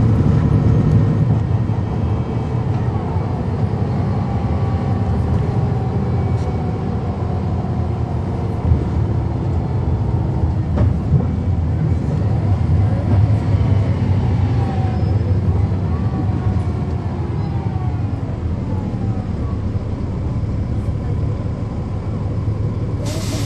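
The Cummins ISL9 inline-six diesel of a 2010 NABI 40-SFW transit bus running, heard from inside the cabin, its pitch rising and falling in several glides. A short hiss near the end.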